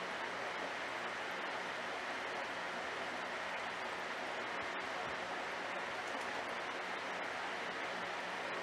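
Steady rushing, splashing water noise from the aquarium's filtration, with a faint low hum under it.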